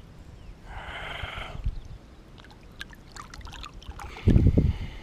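Water splashing and trickling as a large bass is released by hand into shallow water: a sloshing splash about a second in, a few small drips, then a louder low thump near the end.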